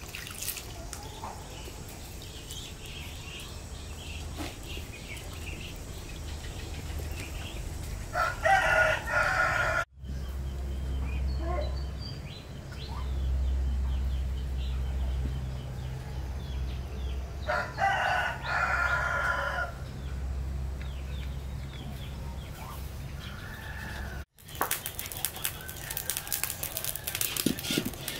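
A rooster crowing twice, once about a third of the way in and again about two-thirds in, each crow lasting under two seconds, over a low wind rumble on the microphone. Light rattling and clicking from handling cookware comes near the end.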